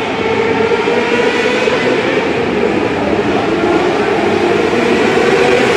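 A field of micro sprint race cars' engines running together around an indoor dirt oval, a loud, steady, echoing drone with engine pitches rising and falling as the cars circle.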